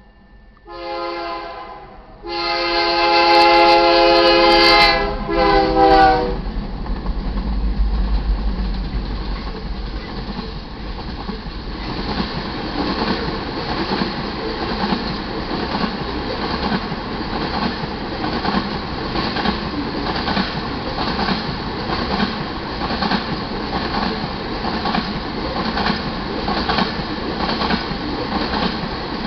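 Freight locomotive horn, on a GE C44-9W leading a loaded crude oil train, blowing for a grade crossing: a short blast, then a long loud one, then a short one, ending about six seconds in. The locomotives then rumble past, followed by a string of tank cars clattering over the crossing and rail joints in a steady, regular clickety-clack.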